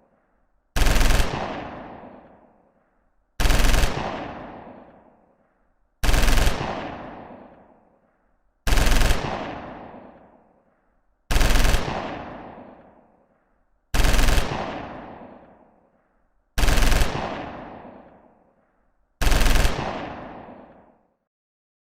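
Machine gun firing eight short full-auto bursts, one about every two and a half seconds, each trailing off in a long echo lasting about two seconds.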